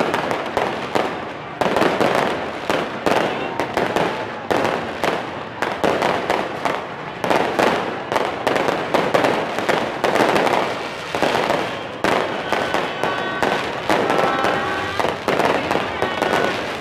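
Aerial fireworks going off in a continuous barrage: overlapping bangs and crackles, several a second.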